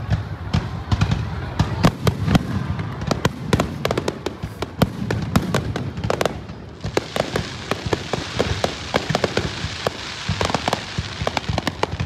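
Aerial fireworks display: a rapid, irregular string of bangs and crackles from bursting shells over a low rumble.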